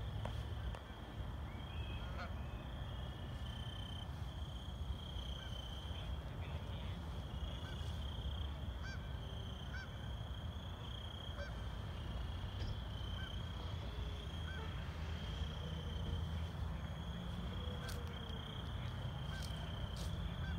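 Outdoor ambience: a steady high insect trill with a constant low rumble under it, and a few faint honking calls in the second half.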